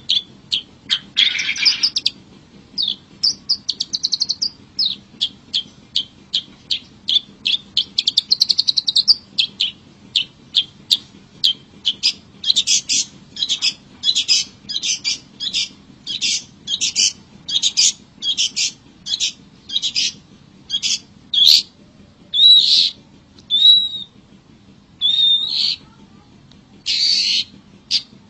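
Long-tailed shrike (cendet) calling: a run of short, sharp chattering notes with trilled phrases early on. From about halfway in come louder repeated notes, roughly two a second, then slurred calls and harsh buzzy notes near the end.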